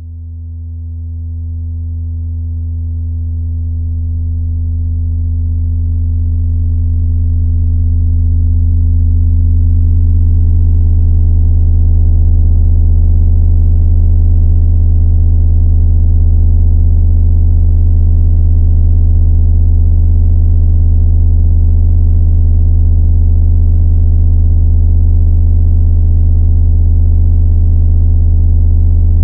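Deep, steady electronic drone tone with faint higher overtones, swelling in over the first ten seconds or so and then holding level, as used for meditation relaxation audio.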